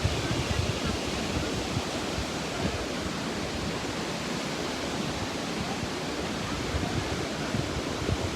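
River water rushing in a steady, even hiss, with irregular low rumbles of wind on the microphone.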